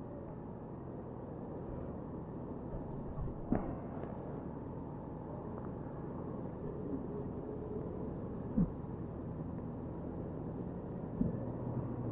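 Motorcycle engine idling while stopped, a steady low hum, with two short knocks, one a few seconds in and one past the middle.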